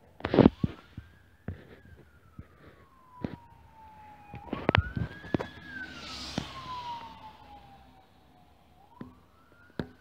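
Emergency-vehicle electronic siren on a GMC Terrain SUV wailing, its pitch sweeping slowly up and down about once every four seconds, with a rush of tyre noise as the vehicle passes about six seconds in. Several sharp knocks, the loudest just after the start and again a little before the midpoint.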